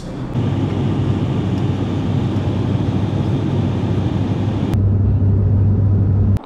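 Steady in-flight cabin drone of a propeller airliner, a low hum under engine and air noise. About five seconds in it switches to a louder, deeper drone, which stops abruptly near the end.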